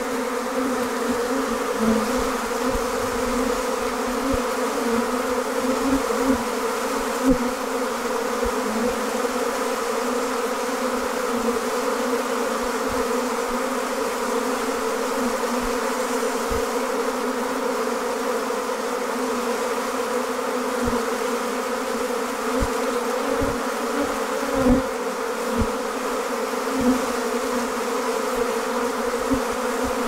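Dense, steady buzzing of a honey bee swarm in flight, thousands of bees pouring out of and around the hive entrance as the colony swarms, with scattered soft low bumps.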